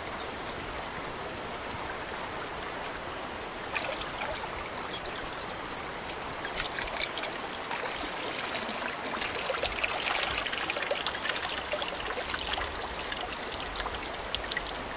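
Shallow water running over stones, with splashing and trickling as wood smoking chips are soaked in a plastic tub and the water is poured out through the fingers. The splashing grows busier past the middle.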